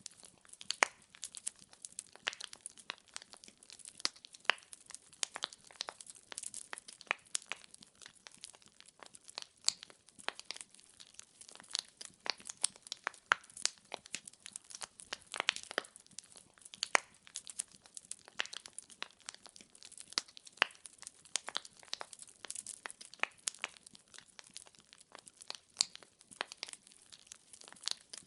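Wood fire burning in a fireplace, its logs crackling and popping in a dense, irregular stream of sharp snaps over a faint hiss.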